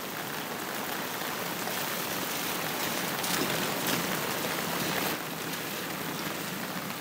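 A steady hissing noise with no distinct events, a little louder between about three and five seconds in.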